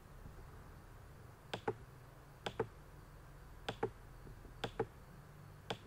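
Sharp clicks in close pairs, like a button pressed and released, five pairs about a second apart starting about one and a half seconds in, over a faint low hum.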